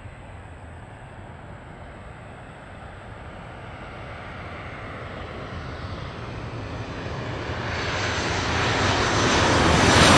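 Boeing 737-800's CFM56 turbofan engines at takeoff thrust as the airliner climbs out: a broad rushing jet roar that grows steadily louder, most of all over the last few seconds.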